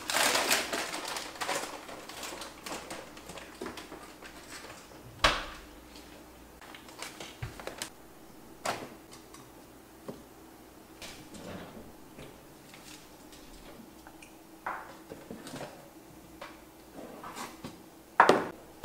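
Kitchen handling sounds while ingredients are taken out: packaging rustling at the start, then scattered clicks and knocks of containers, shelves and cabinet doors, the loudest knocks near the end, over a faint steady hum.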